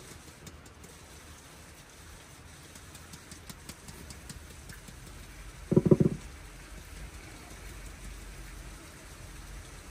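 Hands patting and smoothing wet clay on a clay-and-straw oven dome, a faint soft patter. About six seconds in comes one short, loud pitched sound, perhaps half a second long.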